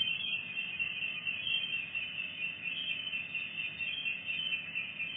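A steady, high-pitched shrill drone with a slight flutter, over a faint hiss.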